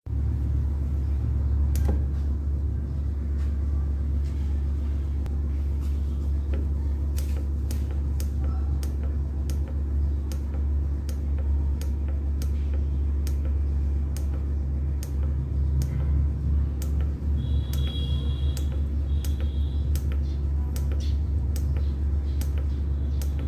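Steady low hum of a running Isuzu 8 kVA diesel generator, with many light clicks as the controller's buttons are pressed and two short high beeps a little past halfway.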